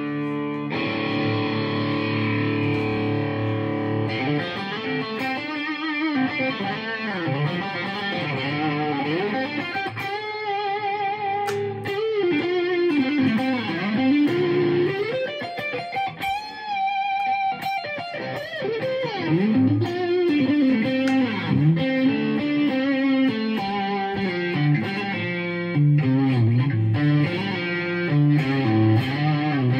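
Electric guitar with a 3D-printed Stratocaster-style body, played through an amp: a chord held for the first four seconds or so, then a lead line of single notes with many notes bent up and back down.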